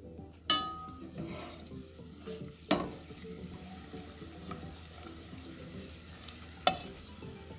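Sugar-and-saffron syrup hitting hot ghee with fried nuts and flour, sizzling and bubbling steadily while a spatula stirs it. Three sharp metal clanks come through: about half a second in, near three seconds, and near the end; the first rings briefly.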